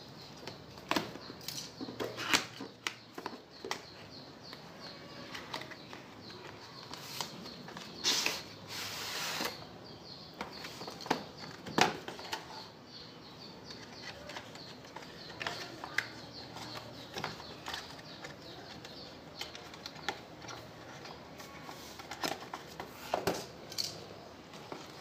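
Cardboard packaging being handled: a box cutter slitting the seal on a keyboard box, then the printed cardboard sleeve slid off the inner brown carton, with scattered scrapes, taps and clicks and a longer scraping rustle about eight seconds in.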